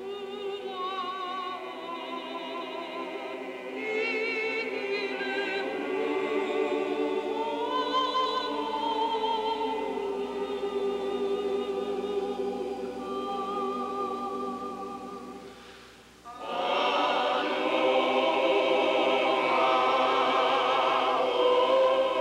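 Choir singing, the voices wavering with strong vibrato. About sixteen seconds in the singing fades nearly away, then comes back fuller and louder.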